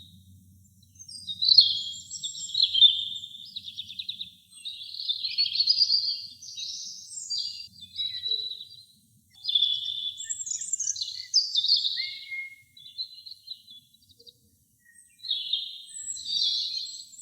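A robin singing: a run of high, quick, varied warbling phrases with short pauses between them, and a longer pause about 14 seconds in.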